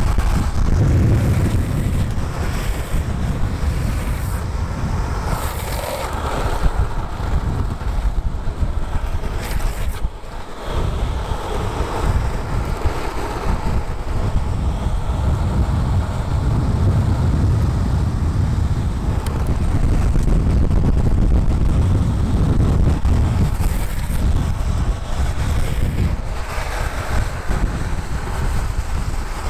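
Wind rushing over the microphone at downhill speed, over the rumble of urethane skateboard wheels rolling on smooth asphalt. The noise dips briefly about ten seconds in.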